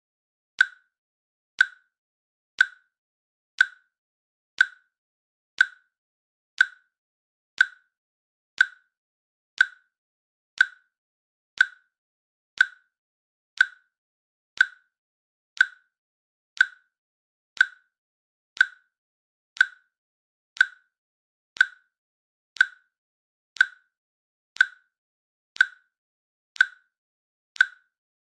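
Countdown timer's click sound effect: one short, sharp click every second, evenly spaced, with silence between.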